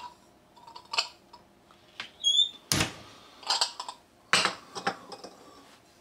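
A ceramic cup and saucer handled and set down on a wooden cutting board: a series of separate knocks and clicks. One short ringing clink comes about two seconds in, and the loudest knock follows just after it.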